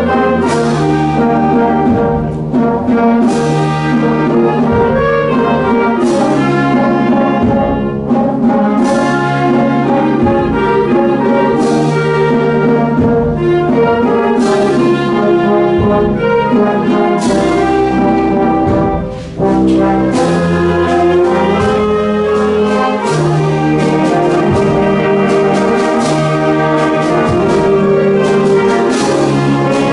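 Wind band of clarinets, trombones, euphoniums and tubas playing a piece in full chords, with the brass to the fore. There is a short break in the sound about 19 seconds in before the band plays on.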